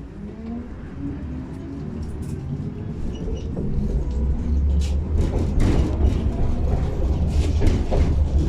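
Tatra T6B5 tram pulling away and picking up speed: a faint motor whine rises in pitch while the low rumble of the wheels on the rails grows steadily louder, with scattered clicks and rattles.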